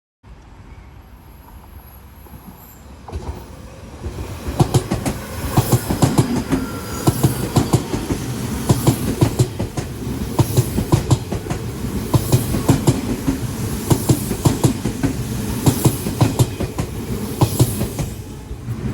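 Odakyu Line electric train running past on the track, its wheels clacking rhythmically over the rail joints. The rumble grows louder a few seconds in as the cars go by.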